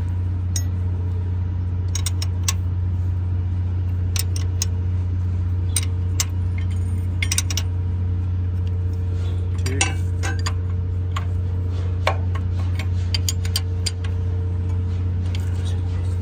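Steady low machinery hum with scattered sharp metallic clinks and ticks of metal on metal, irregularly spaced.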